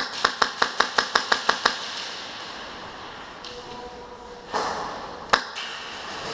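Airsoft gun firing a quick string of about ten sharp shots, about six a second, then a single sharp shot about five seconds in.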